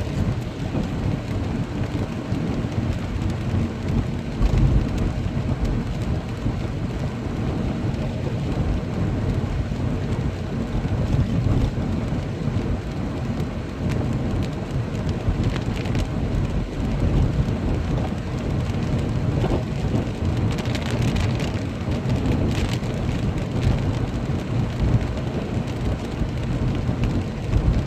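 Heavy rain falling in a steady downpour, with a deep rumble underneath and a few seconds of sharper hiss about twenty seconds in.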